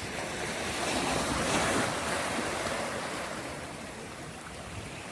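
Surf washing up on the beach: a wave swells about a second in and then eases off.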